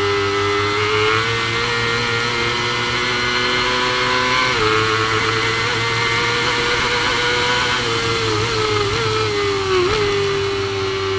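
Supersport racing motorcycle engine held at high revs under full throttle, recorded onboard at around 100 mph. Its pitch drops sharply once about four and a half seconds in, an upshift, and then holds high again.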